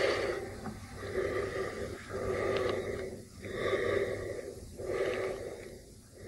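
Heavy, slow breathing: a sound effect of deep breaths in and out, about one a second, at the close of a horror-film trailer.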